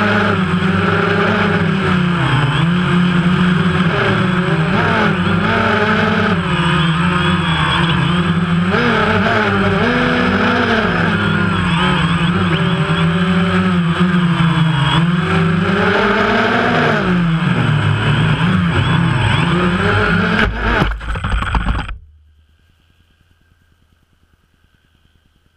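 DJI Phantom quadcopter's motors and propellers whining, heard from the GoPro on board, rising and falling in pitch as it manoeuvres. Near the end come a few clattering knocks, then the motors cut off suddenly as the quad goes down and ends up upside down on the ice.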